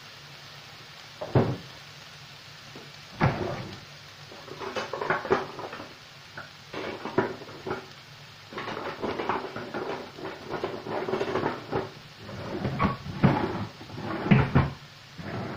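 Cupboard doors and dishes knocking and clattering irregularly, busiest in the second half, over a steady low sizzle of diced potatoes frying in oil in a pan.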